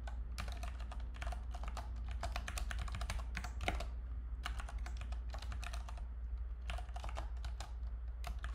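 Typing on a computer keyboard: quick, irregular runs of key clicks with a short pause about six seconds in, over a low steady hum.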